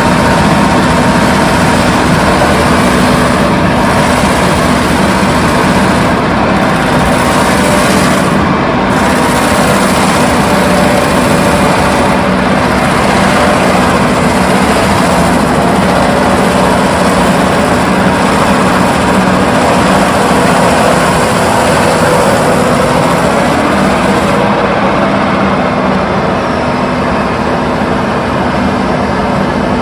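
Doosan DX340LC excavator with its Enviro mulcher head running: a loud, steady machine drone with a constant hum.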